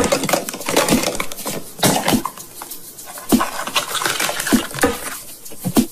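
Hollow plastic nesting egg being twisted and pulled apart by hand, its shells clicking, knocking and scraping against each other and the smaller egg inside, with a sharp knock every second or so.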